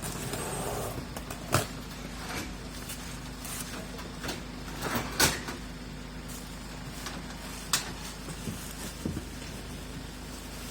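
A few sharp, separate knocks and clatters, the loudest about five seconds in, over a steady low hum.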